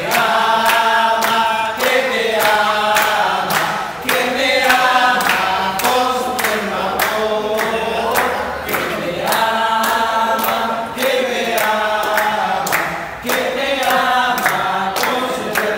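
A group of people singing a song together in unison while clapping their hands in a steady beat.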